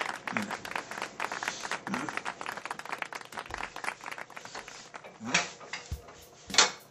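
Dense, rapid clicking and clattering of kitchenware, then two loud clanks near the end.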